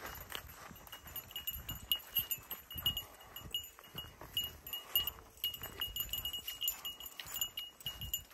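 A dog's metal collar tags jingling in quick, irregular little pings as it trots, with the dog panting and footsteps brushing through trail grass.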